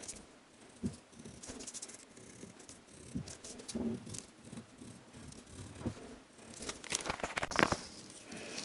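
Pencil scratching on a wooden board and a paper template rustling as it is traced and shifted by hand. A cluster of louder clacks and scrapes comes near the end as a metal ruler is set down on the board.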